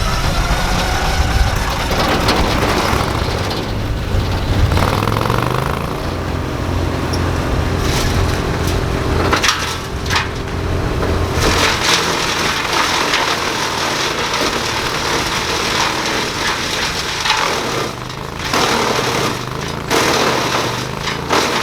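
Engine-driven wood-processing machine running loudly, with wood crackling and snapping as it is chewed up. The low engine note drops away about halfway through, leaving a rougher grinding noise with sharp cracks.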